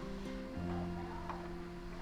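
Background music: a melody of held notes that change about half a second in.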